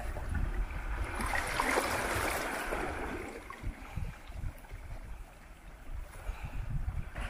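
Small sea waves lapping and washing over rocks at the shoreline. One swash swells about a second in and fades by around four seconds, and the water builds again near the end.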